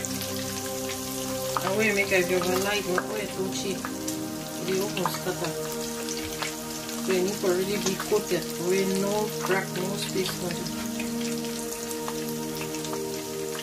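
Hot oil in an electric deep fryer crackling and sizzling steadily as breaded scotch eggs deep-fry. Background music with a wavering melody plays underneath for most of the middle stretch.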